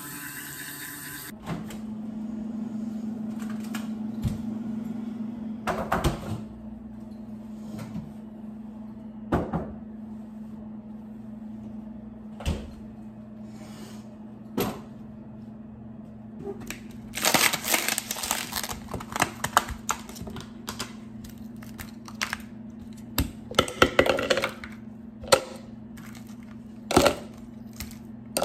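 An electric toothbrush buzzes briefly at the start. Then come kitchen handling sounds over a steady low hum: scattered knocks of containers set on a counter, and two bursts of cracking and clatter in the second half, the sound of ice cubes being twisted out of a silicone tray and dropped into a plastic tumbler.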